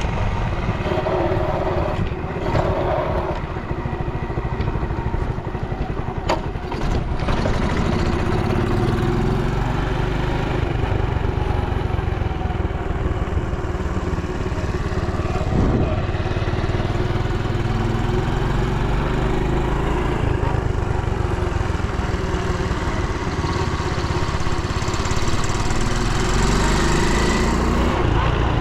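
Honda Dax 70's small single-cylinder four-stroke engine running steadily, the revs rising briefly a few times, with a couple of light clicks about six seconds in. It runs without any abnormal noise, as the seller states.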